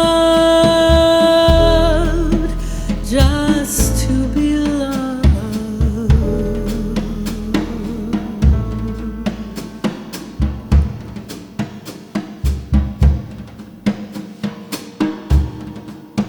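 Jazz combo playing: a long note held with vibrato over acoustic bass and drums. From about five seconds in, the drum kit comes forward with quick snare, rimshot and bass-drum hits over the bass, the music slowly getting quieter.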